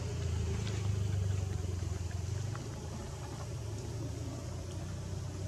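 A steady low rumble with a few faint ticks over it.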